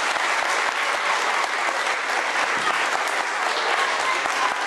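Audience of adults and children applauding: dense, even clapping.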